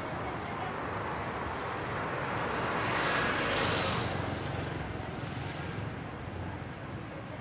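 Engine noise of something passing, a steady rush that swells to its loudest about three seconds in and then fades away.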